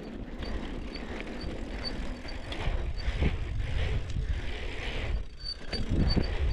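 Mongoose Fireball dirt jump bike being ridden: a steady rolling rumble with wind buffeting the microphone, louder around the middle and near the end, and light irregular clicking like a freewheel ratchet.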